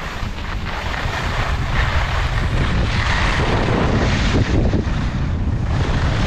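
Wind buffeting the microphone of a camera carried by a skier going downhill, a steady low rumble, with the hiss of skis scraping over groomed snow; it grows louder in the first couple of seconds as speed picks up.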